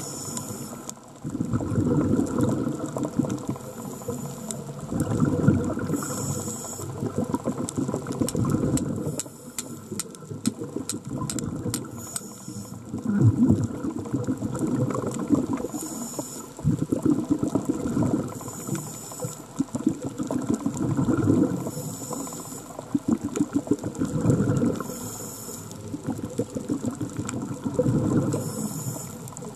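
A diver breathing through a scuba regulator underwater: a short hiss on each inhale and a burst of bubbling on each exhale, repeating about every three seconds. A run of sharp clicks comes partway through.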